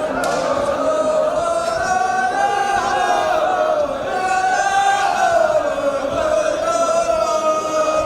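Wordless chanted vocals in the style of a Gulf Arabic shilah: long held notes that slowly glide up and down, with no instruments or beat.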